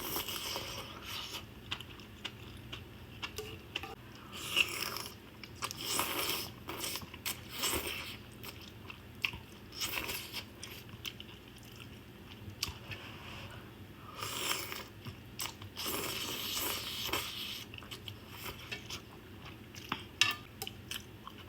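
A person chewing and biting food close to the microphone, in clusters of mouth sounds a second or two long with short pauses between them.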